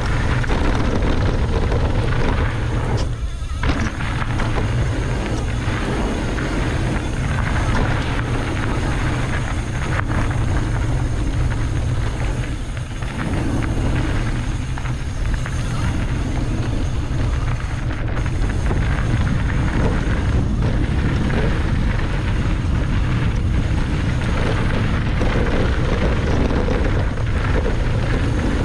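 Mountain bike riding down a trail: a steady low rumble of wind buffeting the camera's microphone, mixed with the rattle and hiss of tyres and frame over the ground.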